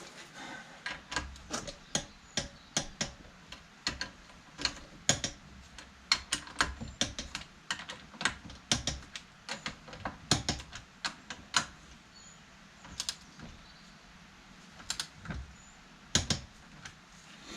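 Irregular runs of sharp metal clicks from a ratchet torque wrench being worked, tightening up bolts. The clicks come thick and fast for about twelve seconds, then only a few more follow.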